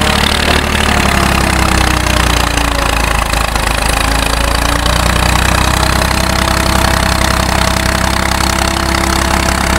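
Diesel farm tractor engines running hard together, a steady low drone. One engine's pitch sinks over the first few seconds and then climbs again as the tractors strain to free a loaded tractor-trolley stuck in sand.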